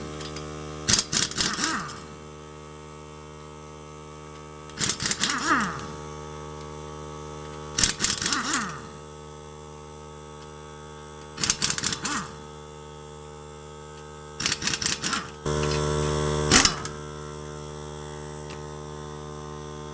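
Pneumatic 1/2-inch air impact wrench hammering on lug nuts in about six short bursts of a second or so each, fed by a small 3-gallon oilless pancake air compressor whose motor hums steadily underneath. The compressor's hum grows louder about fifteen seconds in, as it runs again to refill the tank.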